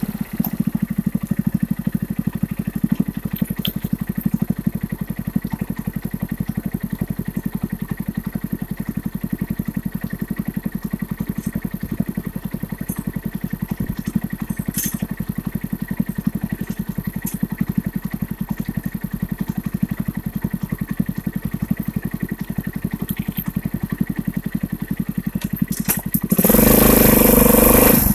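Custom Yamaha Blaster quad with a Suzuki 500cc twin-cylinder motorcycle engine idling steadily, then revving loudly about two seconds before the end as it pulls away.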